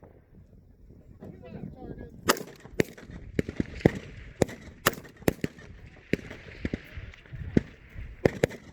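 Rifle fire from M4 carbines: about a dozen sharp single shots at irregular intervals, starting about two seconds in.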